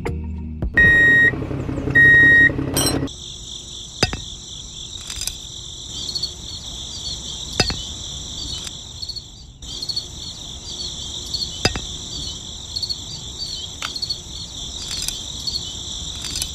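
Crickets chirring steadily in a high, pulsing drone, with a short break near the middle. Over it come sharp single clicks every second or two as the plastic and metal parts of a model tractor's hitch are pinned together. Near the start there are two short high beeps.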